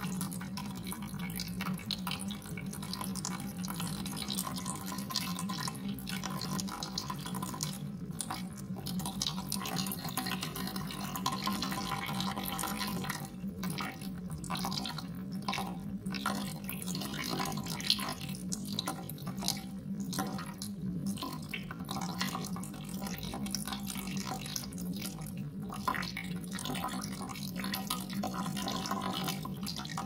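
Water dripping and trickling, a nature-sound track of running water, over a steady low hum.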